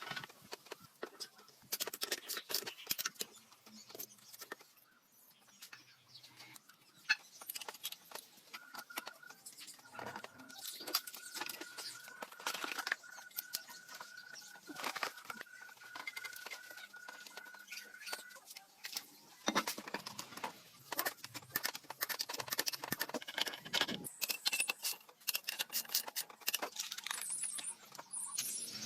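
Irregular clinks and knocks of metal parts and hand tools being handled, with a thin steady tone through the middle stretch.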